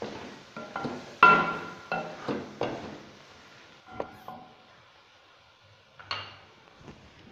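A wooden spatula stirring tomato masala in an aluminium karahi, knocking and scraping against the metal pan, which rings briefly after each knock. The knocks come quickly and loudest about a second in, then thin out to a few single taps.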